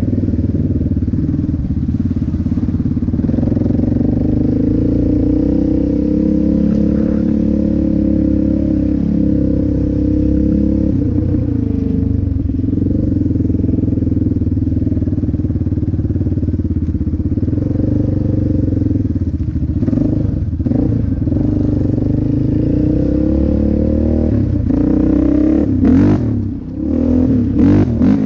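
ATV engine running under throttle as the quad is ridden along a dirt trail, its pitch rising and falling with the throttle. Near the end the revs drop briefly and a few sharp knocks come through.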